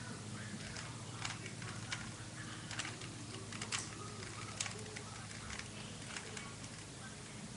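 Plastic Rubik's cube being turned by hand: irregular clicks and clacks of the layers snapping round, over a steady low hum and hiss.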